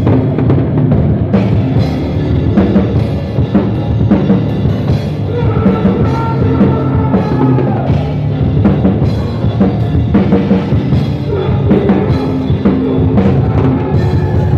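Loud heavy metal music with a full drum kit playing continuously.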